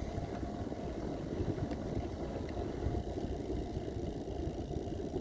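Steady low rumble of wind on the microphone and rolling noise from riding a bicycle along an asphalt trail.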